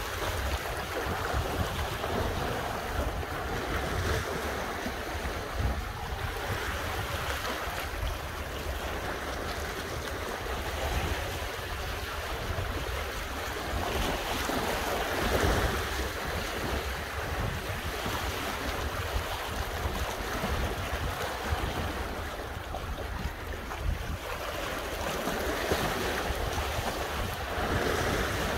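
Sea waves washing against the shore, swelling and easing every few seconds, with wind buffeting the microphone as a steady low rumble.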